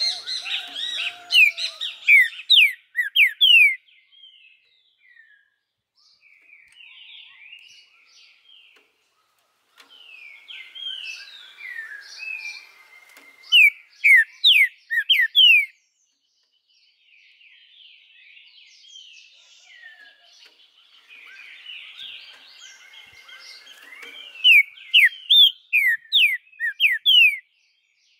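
Green-winged saltator (trinca-ferro) singing in three song bouts, each ending in a quick run of loud, sharply falling whistled notes, with quieter twittering between the bouts.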